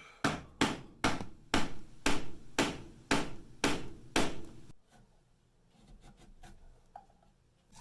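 About nine hammer blows on wood, evenly spaced at roughly two a second, followed by a few light taps.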